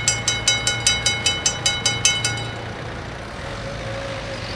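Level-crossing warning bells ringing in rapid strokes, about five a second, then stopping about two and a half seconds in as the barriers finish rising: the end of the warning cycle after the train has cleared. A low rumble continues underneath.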